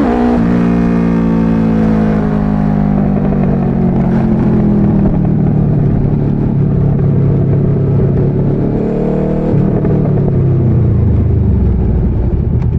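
Motorcycle engine heard from the rider's seat, the revs dropping as the throttle closes and winding down. Near three quarters of the way through it picks up briefly, then closes off again and winds down.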